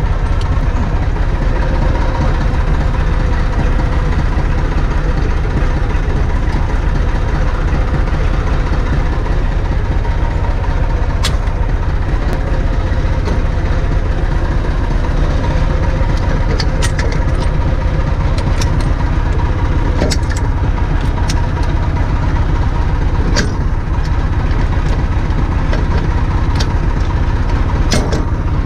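Massey Ferguson MF 254S tractor's diesel engine idling steadily, with a few sharp metallic clicks as the hitch and linkage of the Fahr KM 20 drum mower are handled.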